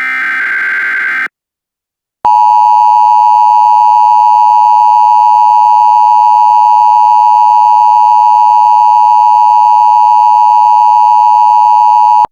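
Emergency Alert System tones. First comes the last burst of the SAME digital header, a harsh data warble about a second long. After a short gap the EAS attention signal follows: a loud, steady two-tone alert (853 and 960 Hz) held for about ten seconds.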